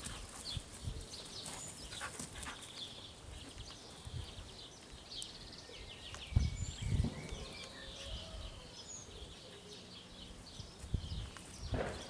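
Small birds chirping and singing in the background, broken by a few short low thuds and rustles, the loudest about halfway through and near the end.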